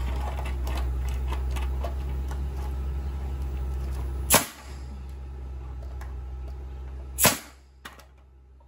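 Pneumatic framing nailer firing twice, about three seconds apart, driving nails into a wooden lumber frame: two sharp loud shots. A steady low hum runs underneath and cuts off just after the second shot.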